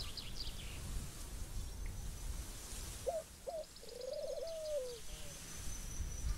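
Outdoor bird ambience: small birds trilling high at the start and again near the middle. About three seconds in comes a lower call that rises twice, then holds and falls away. A steady low rumble runs underneath.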